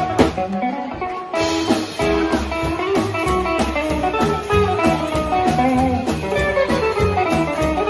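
Rockabilly band playing live: upright double bass, electric guitar and drums in an instrumental passage. The band thins out briefly about a second in, then comes back in full.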